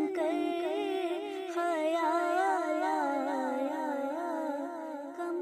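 Unaccompanied naat vocal: a voice humming and singing long, wavering melodic lines, with no instruments. It dips slightly in level near the end.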